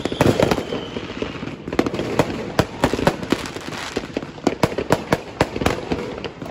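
Fireworks going off: a dense, irregular string of sharp bangs and cracks, several a second, over a constant rumble of further bursts. A falling whistle fades out within about the first second.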